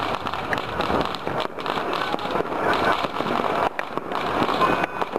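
Dense, unbroken crackle and popping of many firecrackers and fireworks going off at once all over a city, with no single bang standing out.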